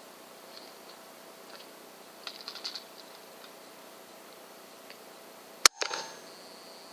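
A single air rifle shot, one sharp loud crack about two-thirds of the way in with a short ringing tail. A few faint clicks sound a couple of seconds before it.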